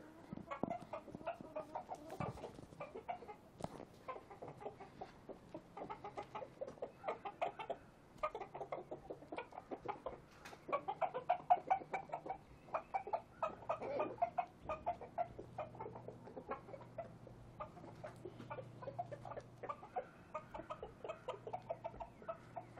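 Chickens clucking: many short, repeated clucks from several birds, busiest about halfway through.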